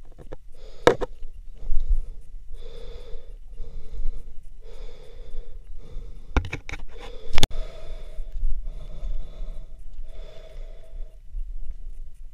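A hiker breathing hard from the exertion of a steep uphill scramble, one heavy breath about every second and a half. A few sharp knocks, such as shoes or hands on rock, break in; the loudest comes about seven seconds in.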